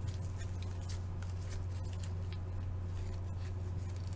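Faint ticks and rustles of trading cards and a foil pack wrapper being handled by gloved hands, over a steady low hum.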